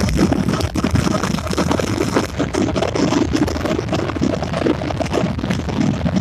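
Fireworks crackling and popping in a dense, unbroken stream.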